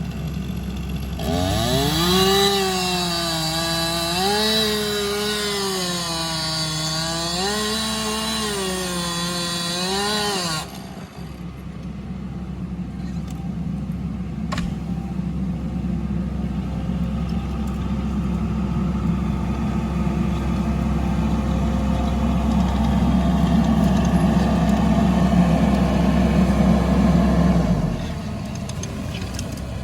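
Two-stroke chainsaw revving up and cutting for about nine seconds, its pitch dipping and rising as it bogs into the wood and frees up, then stopping abruptly. After it, a steady engine runs, growing louder, and cuts off near the end.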